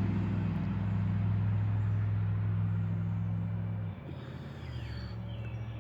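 Farm equipment engine running with a steady low hum that drops off suddenly about four seconds in, leaving a quieter hum. Birds chirp faintly near the end.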